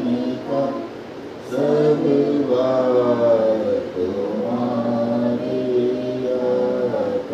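Several voices singing a devotional bhajan to the guru without instruments, in slow, drawn-out phrases with a short pause about a second in.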